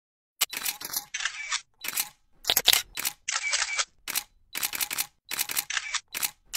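Camera shutter sounds: a quick, irregular series of about a dozen shutter snaps, some short clicks and some longer, starting about half a second in.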